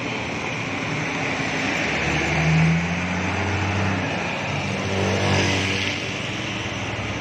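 Hino coach's diesel engine pulling away, coming up louder about two seconds in and rising again around five seconds, over a steady hiss of rain and tyres on the wet road.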